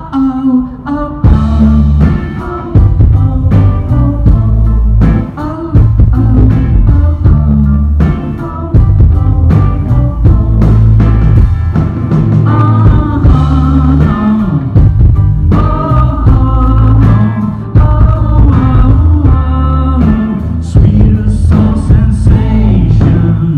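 Live pop-rock band playing loudly, with drums, a heavy pulsing bass and guitar.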